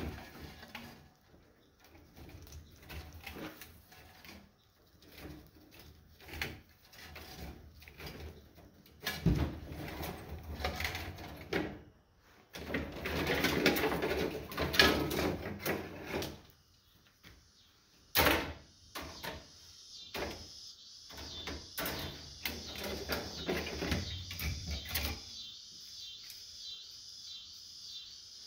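Clinks, scrapes and rattles of loose copper armature windings being pulled free and handled, with a denser stretch of scraping about a third of the way in and a sharp clank about two-thirds in. A faint, high, steady chirring runs under the second half.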